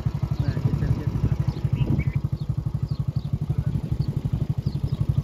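Engine idling with a steady, fast, even pulsing beat.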